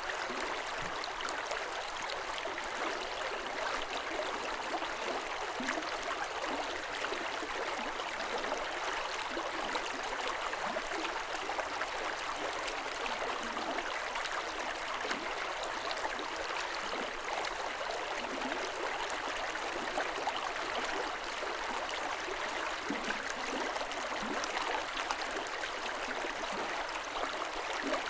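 River water running steadily over rocks, a continuous babbling and gurgling with many small splashes.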